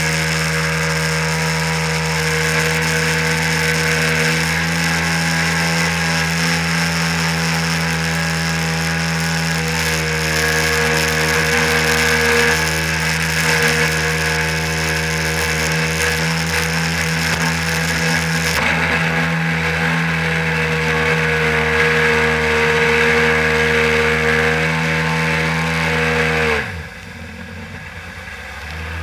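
1997 Sea-Doo SPX jet ski's two-stroke engine running at steady throttle while towing a tube, heard from the tube behind it over the rush and spray of the wake. Near the end the throttle is let off and the engine's pitch falls sharply as it drops toward idle, the water noise dying down with it.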